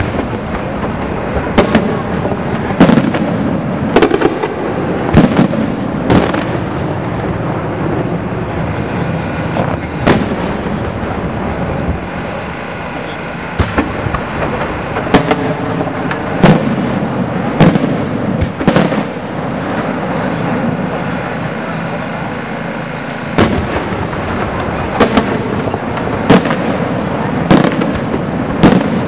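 Aerial fireworks display: shells bursting with sharp bangs over a continuous crackle and rumble. The bangs come in quick flurries, with a quieter stretch about two-thirds of the way through.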